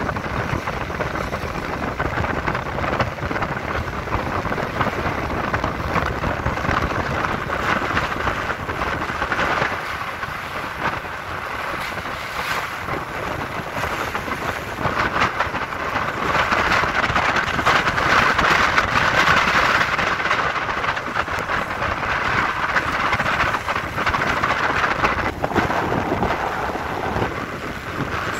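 Paddle steamer Waverley's paddle wheels churning the water in a steady splashing rush as she comes alongside, louder for a stretch past the middle, with wind rumbling on the microphone.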